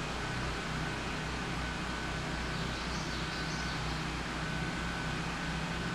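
Generators running, a steady low mechanical hum that pulses slightly, with a faint even hiss over it.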